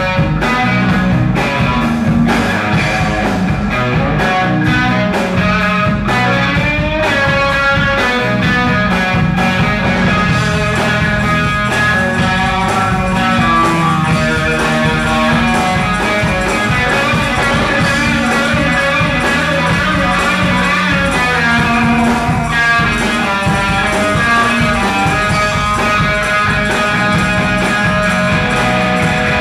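Live rock band playing an instrumental passage: an electric guitar carrying the lead line over bass guitar and drums.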